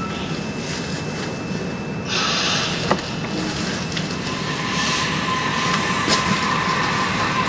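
Osaka Metro Series 70 linear-motor subway car running through a tunnel, heard from inside a motor car: a steady running rumble with electrical whine. There is a brief hiss about two seconds in, and a steady whine comes up from about halfway.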